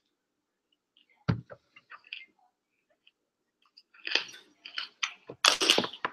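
Raw broccoli being bitten and chewed: crisp crunching that starts about four seconds in and grows loud near the end. A single thump comes about a second in.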